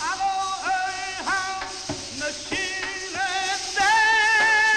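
A high voice singing a Persian-style chant in short phrases of sliding, wavering notes, rising to a louder long-held note near the end, with a few drum strokes underneath. This is the kind of chant and goblet-drum (zarb) beat that leads zurkhaneh club-swinging exercises.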